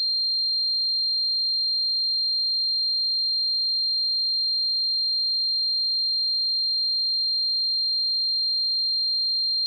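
A steady, high-pitched pure tone, the simulated ringing of tinnitus, holding one pitch and level throughout.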